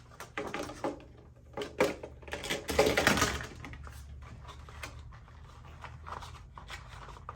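Irregular light clicks and rustles of packaging being handled as a model train locomotive is unpacked, with a longer scraping rustle about three seconds in.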